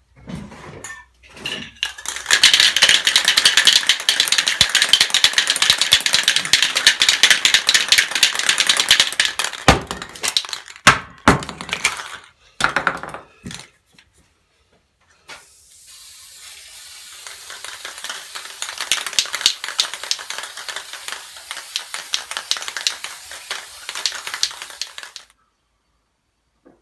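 Aerosol spray paint can spraying matt black paint in two long spells of steady hiss, the second quieter, with a few sharp metal clinks and rattles from the can between them.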